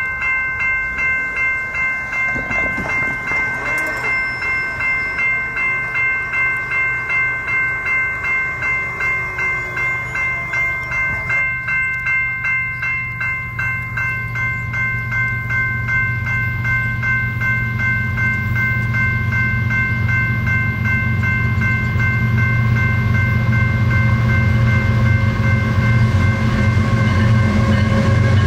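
Railroad grade-crossing bell ringing in a steady pulse, about two strokes a second. Under it, the rumble of a BNSF freight train's diesel locomotives grows from about halfway and is loudest near the end, as the lead locomotive comes up to the crossing.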